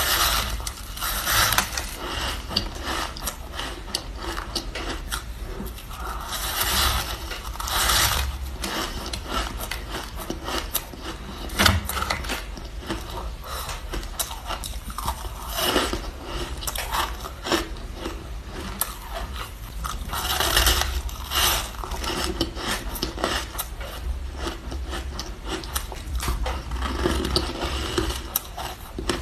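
Close-miked crunching of ice being bitten and chewed: a dense run of crackling clicks with louder crunches every several seconds.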